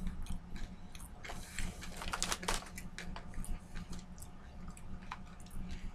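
Crunching of kettle-cooked sweet potato chips being chewed: irregular crisp crackles, thickest about two seconds in.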